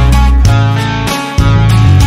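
Background music: a guitar-led song over bass with a steady beat.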